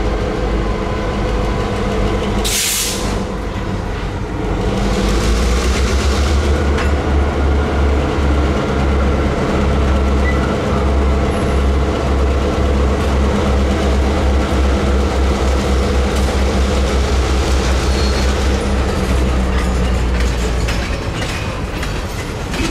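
Two Norfolk Southern diesel locomotives running under load as they pull a freight train of boxcars slowly past, a steady engine drone with a deep rumble that grows louder about five seconds in. A brief hiss about two and a half seconds in.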